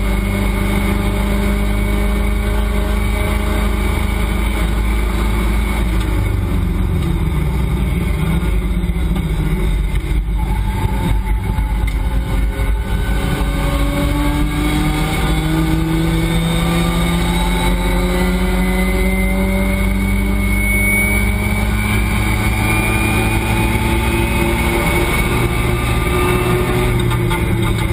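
Race car engine heard from inside the cockpit at track speed. It slows for a corner, then accelerates hard, its pitch climbing through the gears in repeated rising pulls.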